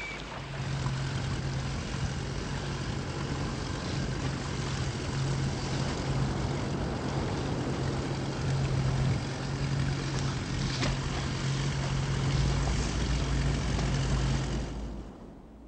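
Boat engine running steadily, a low hum with a slight pulse over a broad hiss of wind and water; it fades out at the end.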